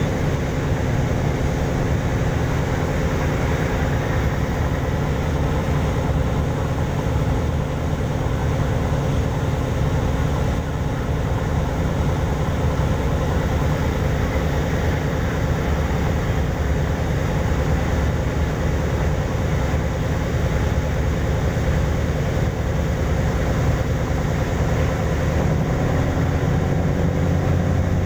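Passenger ferry KM. Barcelona IIIA under way at about 18 knots: its engines give a steady, deep drone, with the rush of its wake along the hull. A steadier low engine hum comes up more strongly near the end.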